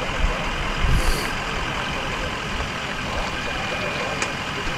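Tow truck engine running at idle: a steady rumble mixed with street noise, with a short hiss about a second in.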